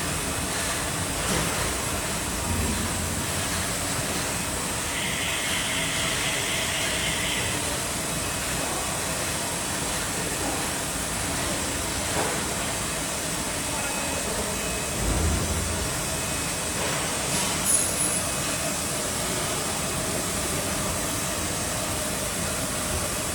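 Steady mechanical din of workshop machinery running, with a brief high pulsing tone about five seconds in and a couple of low thumps.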